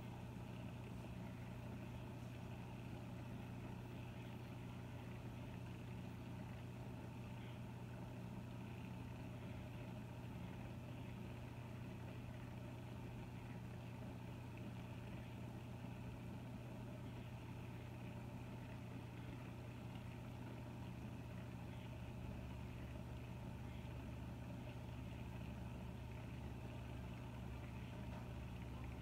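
Steady low hum of aquarium pumps running, with a deeper rumble joining about three-quarters of the way through.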